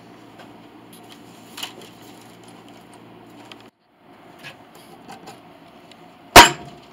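Workshop handling sounds: light metallic clinks and small knocks over a steady low hum, breaking off briefly just past halfway, then one loud sharp knock near the end.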